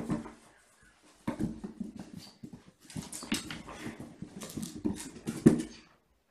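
Kittens play-fighting and chasing: scuffling, paw thuds and scrabbling on a hard floor, then jumping and climbing onto a carpeted cat tree, with a sharp thump about five and a half seconds in.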